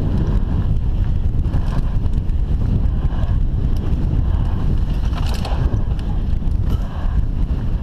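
Wind buffeting a helmet-mounted camera's microphone as a mountain bike descends a loose dirt trail at speed, a steady loud rumble with occasional knocks and rattles from the bike over rough ground.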